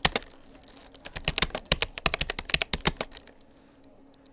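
Keystrokes on a Rapoo computer keyboard during touch-typing practice: a couple of clicks, a brief pause, then a quick run of keystrokes that stops about three seconds in.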